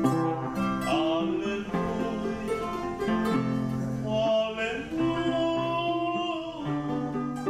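Music: a Spanish-language song with plucked and strummed acoustic guitar and a singing voice.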